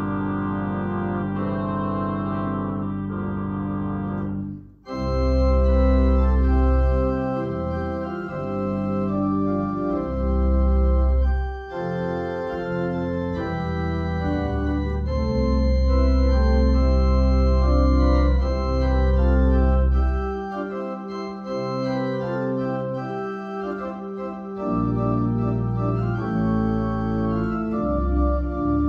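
Organ music: held chords over deep pedal bass notes, moving from chord to chord, with a brief break about five seconds in.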